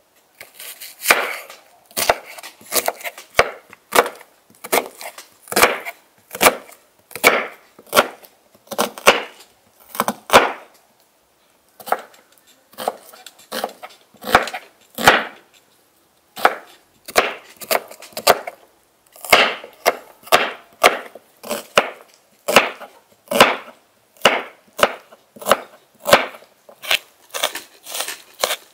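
Large kitchen knife slicing and chopping a peeled onion on a wooden cutting board. Each stroke is a crisp crunch through the onion ending in a knock on the board, repeating more than once a second, with a couple of short pauses.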